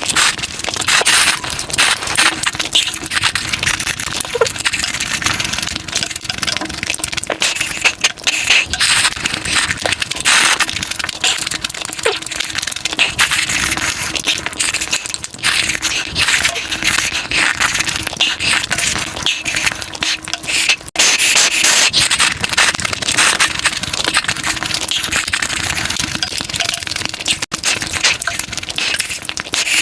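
Mukbang eating sounds: food being crunched and chewed, a dense, unbroken run of cracks and crackles.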